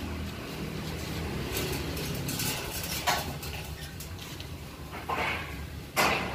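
Metal tower truss sections knocking and clanking against each other as they are handled and shifted, with a few separate clanks and the loudest one near the end.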